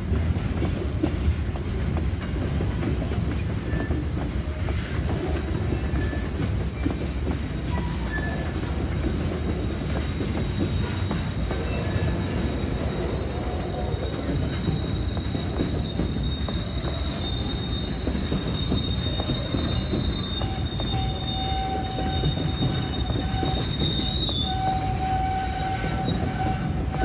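Freight train rolling slowly out of a rail yard with a steady rumble of cars on the track. A high, thin wheel squeal sets in about a third of the way through and holds until near the end.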